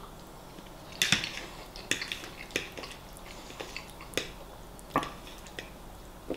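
Close-miked eating of a fried breakfast: chewing and mouth clicks with a metal fork tapping and scraping on a plate, a scatter of short sharp clicks with no steady rhythm.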